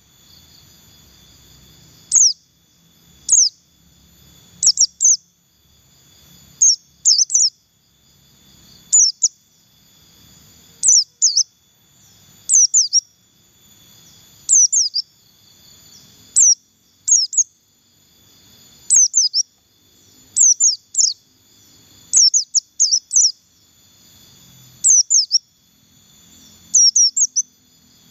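A white-eye ('pleci buxtoni') giving its loud 'ngalas' calls: short, sharp, very high notes that sweep downward, singly or in quick runs of two to four, every second or two.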